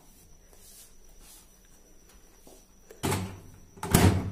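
Microwave oven door being swung shut and latched: two sharp knocks about a second apart, the second the louder.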